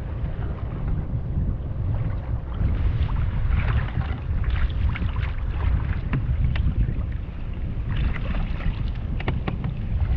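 Wind rumbling on the microphone over water sloshing against the kayak, with many short knocks and splashes scattered through.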